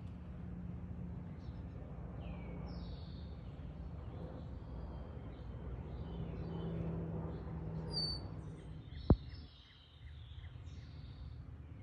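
Wild birds giving short chirps and calls over a steady low background rumble. A single sharp knock about nine seconds in is the loudest sound.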